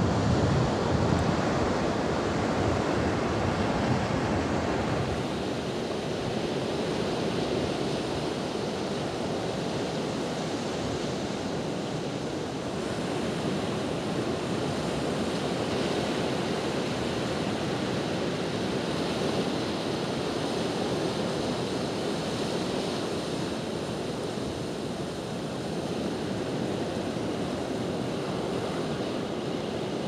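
Steady wash of beach surf with wind on the microphone. The low wind rumble is strongest in the first few seconds, then settles into an even hiss.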